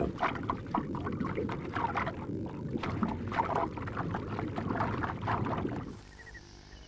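Watery sloshing and swishing with many irregular soft clicks, heard with a scallop swimming off the seabed by clapping its shells. It cuts off suddenly about six seconds in.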